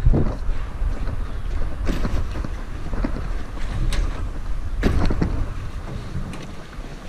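Wind buffeting the microphone of a body-worn action camera as its wearer runs, a heavy low rumble broken by scattered sharp thumps of footfalls and knocks.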